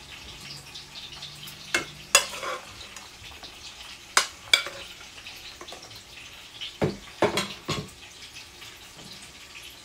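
Metal spoon clinking and scraping against a dish as cooked diced meat is spooned out and scattered over layered injera: sharp taps in small clusters about two, four and seven seconds in.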